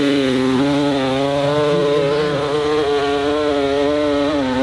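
Dirt bike engine held at high revs under load as it climbs a steep hill, a steady high-pitched note that wavers slightly, dipping briefly near the end.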